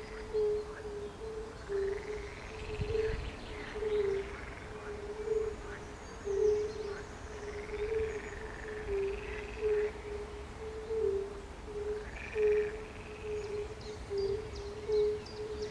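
Chorus of fire-bellied toads: a steady run of short, low 'oop' notes at one pitch, several animals overlapping. Frogs croak over them in louder calls every two or three seconds.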